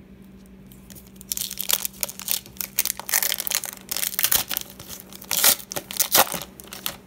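Foil wrapper of an Upper Deck hockey card pack being torn open and crinkled by hand, a dense crackling rustle starting about a second in, with the loudest tears near the end.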